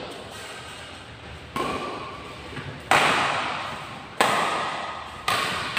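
Badminton rackets hitting a shuttlecock in a doubles rally: four sharp hits about a second and a quarter apart, each ringing on in the echo of a large hall.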